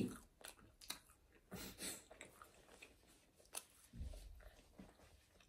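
Someone chewing a mouthful of McDonald's Quarter Pounder with cheese: faint, scattered mouth clicks and soft smacking, with a couple of slightly louder chews around two seconds and four seconds in.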